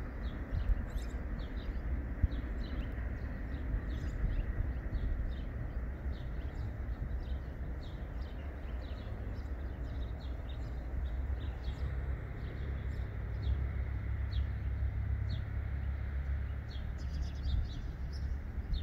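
Small birds chirping in short, repeated calls over a steady low rumble from a distant freight train; the rumble grows somewhat stronger in the second half.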